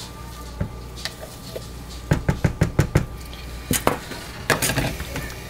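Plastic mixing containers and a utensil knocking and clattering as they are handled: a quick run of about seven taps a little past two seconds in, then a few more knocks near the end.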